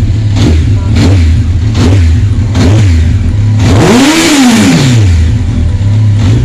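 Honda CBR1100XX's inline-four engine idling with quick throttle blips about once a second, then one longer rev about four seconds in that rises and falls back to idle. It has just had fresh oil and runs clean, without knocks.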